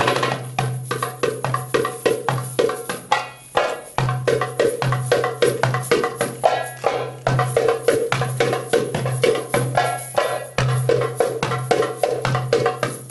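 Riq, an Arabic frame drum with jingles, played live in a fast drum-solo rhythm: quick sharp strokes on the skin mixed with the jingle of its small cymbals, with a brief break in the rhythm about four seconds in and again about ten and a half seconds in.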